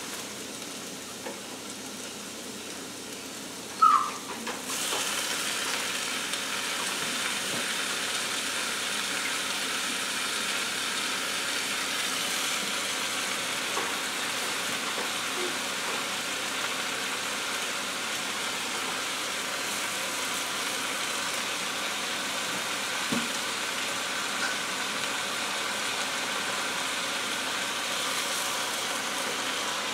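Food sizzling in a hot electric cooking pot as raw chicken pieces go in on top of sautéed vegetables. After a short sharp sound about four seconds in, the sizzling grows into a louder steady hiss.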